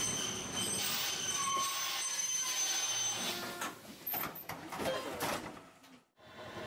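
Tosa Den street tram car 604 running on its rails, a thin steady high squeal over the running noise for about the first three seconds, then quieter clicks and rattles. The sound drops out briefly near the end.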